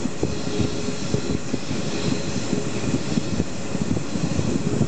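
SJ passenger train running, heard from inside the carriage: a steady low rumble of wheels on the rails, full of constant irregular knocks and rattles, with a faint steady hum underneath.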